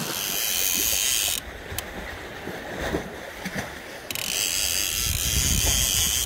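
Fishing reel giving a fast, buzzing ratchet clatter under the pull of a hooked fish on a bent rod, in two spells: the first cuts off about a second and a half in, the second starts again about four seconds in.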